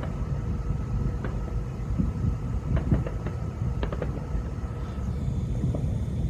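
Thousands of distant fireworks merging into one continuous low rumble, like rolling thunder. Scattered sharper cracks and pops from nearer ones stand out at irregular moments, several of them around the middle.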